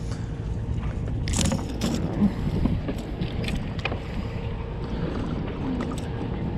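Scattered clicks, knocks and rustles of a mangrove snapper being unhooked by hand, the fish flapping, over a steady low rumble.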